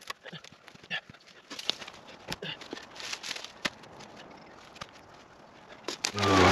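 Dead branches and logs being handled and dropped on a leaf-littered dirt trail, with footsteps: scattered knocks, snaps and rustles. Just before the end a loud, steady droning sound starts suddenly and drowns them out.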